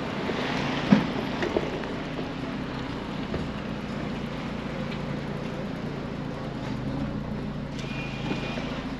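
Street traffic ambience: a steady low engine hum, with a sharp knock about a second in and a faint high tone near the end.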